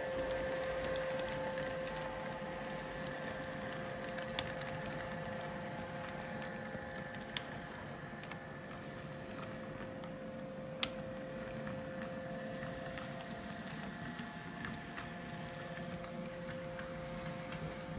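Model electric train (an S set double-decker model) running along the layout track: a steady motor whine over a low rolling rumble, with a few sharp clicks about 4, 7 and 11 seconds in.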